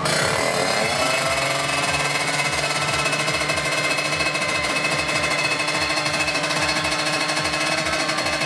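A tuned 155cc Kawasaki Ninja two-stroke drag-bike engine running. Its pitch rises a little over the first second, then holds steady with a fast, even pulsing.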